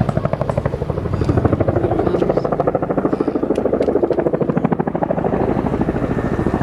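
Display aircraft flying overhead, a loud, steady engine sound with a rapid, even pulsing throb.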